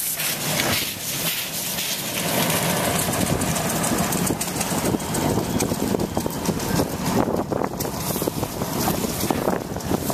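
Narrow-gauge steam locomotive working close by, hissing steam from its cylinder cocks in a loud, steady rush.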